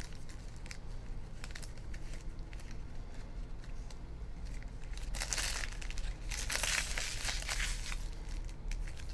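Crinkling and tearing of the plastic wrapping on trading-card packs as they are handled and opened, in irregular bursts that are busiest a little past the middle.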